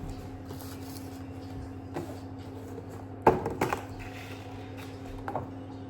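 A few scattered knocks and clicks of kitchen items being handled, the loudest about three seconds in, over a steady low hum.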